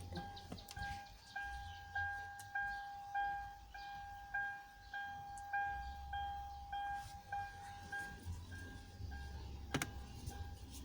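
Steady electronic warning beep from a car, one tone repeating evenly a little under twice a second, as a door-open or key-in chime does. A sharp knock sounds near the end.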